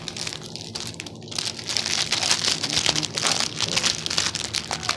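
Clear plastic toy packaging crinkling and crackling as it is handled, a dense run of crackles that gets louder about two seconds in.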